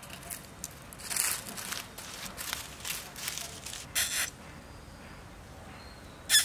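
Dry fallen leaves rustling and crackling under a small monkey's steps, followed by two short harsh calls from a young monkey, the louder one right at the end.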